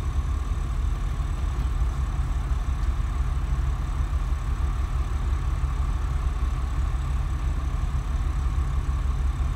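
Twin diesel engines of a motor yacht running steadily at low speed while it manoeuvres clear of its slip, a steady low engine sound with no changes in pitch.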